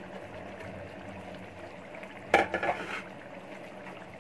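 Crushed fried onions being shaken off a paper sheet and sprinkled by hand into a pot of simmering beef qorma, with a short burst of sharp clicks and knocks against the pot about two seconds in. A steady low hum runs beneath.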